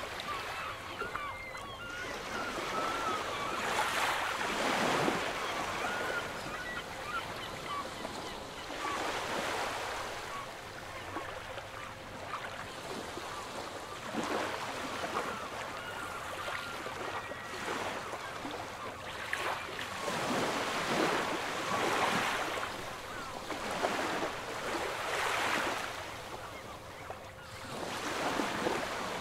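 Sea waves washing in, with wind. The sound swells and fades every few seconds, and faint short chirping calls sound in the first few seconds.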